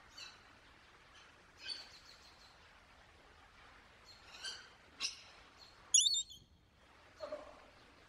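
Rainbow lorikeet giving about six short, separate calls at irregular intervals. The loudest and highest call comes about six seconds in.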